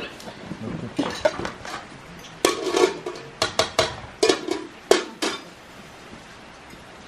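Metal forks and a serving spoon clinking against plates and a steel cooking pot as a meal is served and eaten. Most of the clinks come as a quick run of about a dozen sharp knocks in the middle.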